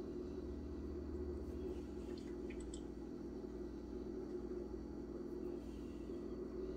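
Steady low hum of room tone, with a few brief faint high squeaks about two and a half seconds in.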